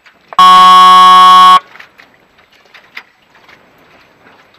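A signal horn sounds one loud, steady blast a little over a second long, starting about half a second in.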